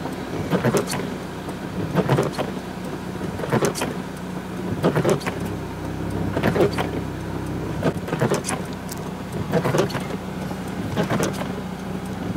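Windscreen wipers sweeping the wet glass, one swish about every second and a half, over the steady low hum of the car's engine idling.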